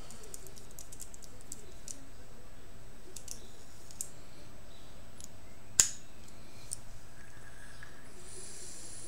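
Small clicks and taps from a brass mechanical vape mod and its dripping atomizer being handled, with one sharper click a little after halfway. Near the end comes a soft high hiss as the vape is drawn on.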